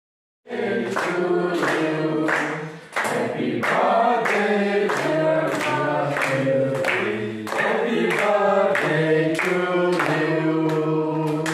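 Group of voices singing together in harmony, with a steady beat running under the song. It starts abruptly about half a second in.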